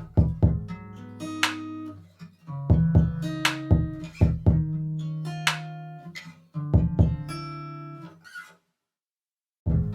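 Instrumental background music: plucked, ringing notes over a low beat, cutting out for about a second near the end before starting again.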